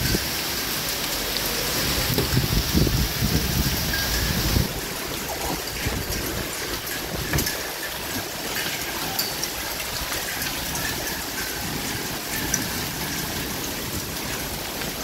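Hail mixed with rain falling steadily, a continuous hiss with scattered small ticks of pellets striking. It is louder, with a low rumble, for about the first four and a half seconds, then settles to a steadier, quieter hiss.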